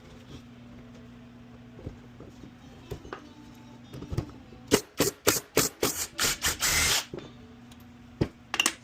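Hand tools working on a metal ATV brake caliper: a quick run of sharp clicks and knocks, ending in a harsher noisy burst of about a second, then a couple more clicks near the end, over a steady low hum.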